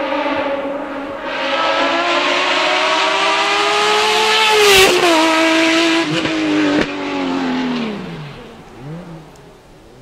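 Racing Opel Kadett C's BMW straight-six engine at high revs, accelerating past with its pitch climbing to a peak just before halfway, then dropping sharply as it goes by. Two sharp cracks come about a second apart, then the note falls and fades away with short up-and-down swings in revs.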